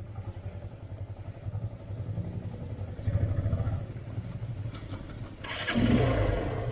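Motorcycle engine running at low speed, with a steady low pulse. It gets louder about three seconds in, then a louder rush of noise comes about five and a half seconds in.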